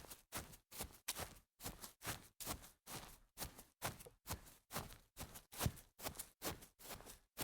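Sneakers stepping fast on grass: a quick, even series of footsteps, about three steps a second.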